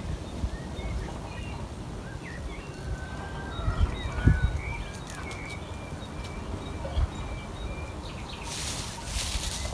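Small birds chirping and calling with short high notes, over a low rumble, with a thump about four seconds in and a brief rustling burst near the end.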